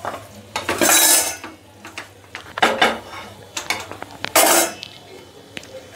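Wooden spatula scraping and stirring thick jackfruit curry in a metal kadhai, with clinks and clatter of cookware in a few separate bursts, the loudest clatter near the end.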